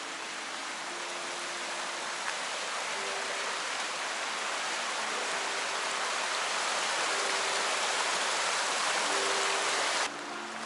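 A steady hiss that slowly grows louder and cuts off suddenly about ten seconds in, with quiet background music underneath.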